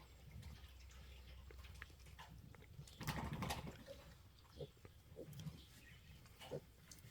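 A sow and her newborn piglets grunting softly, with a brief louder scuffle about three seconds in.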